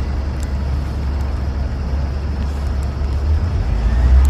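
Steady low rumble of a motor vehicle running, growing louder near the end.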